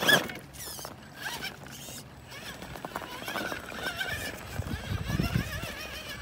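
Electric motor and geartrain of an RC rock crawler whining as it climbs, the pitch wavering up and down as the throttle changes, with a short loud sound right at the start and a low rumble of the truck working over the dirt about five seconds in.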